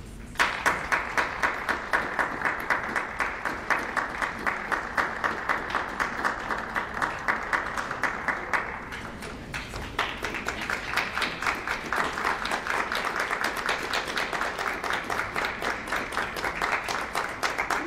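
Audience applauding with many hands clapping, starting abruptly about half a second in, easing off briefly around the middle, then picking up again.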